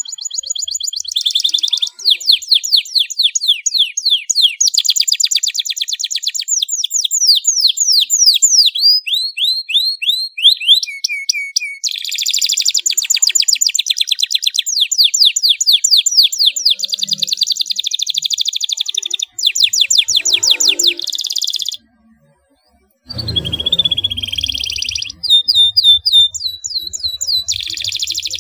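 Domestic canary singing a long song of rolls and fast trills, each phrase a rapid run of one repeated note before switching to the next. The song breaks off for about a second a little past the middle, then goes on, with a faint low rumble underneath toward the end.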